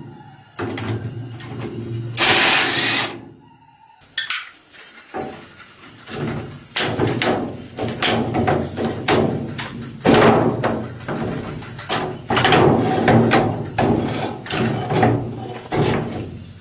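Repeated hammer blows on metal, irregular and fairly quick, with a faint ringing after them. A short hiss about two seconds in comes before the hammering.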